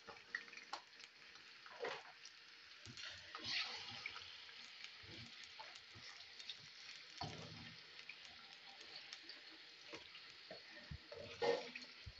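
Raw chicken pieces frying in oil in a steel karahi, a faint steady sizzle, with scattered scrapes and knocks of a spatula stirring them against the pan.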